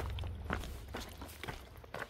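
Hiker's footsteps on the trail at a steady walking pace, about two steps a second.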